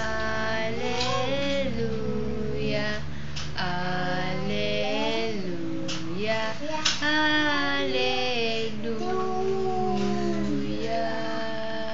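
Singing over music: a song with a female voice and instruments plays while a toddler sings along in long, drawn-out notes that slide up and down in pitch.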